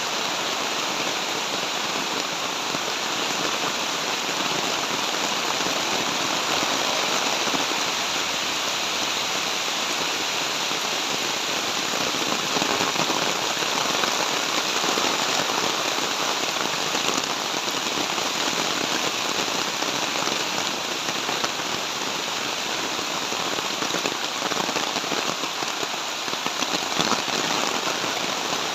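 Heavy rain falling steadily, a dense continuous hiss of rain.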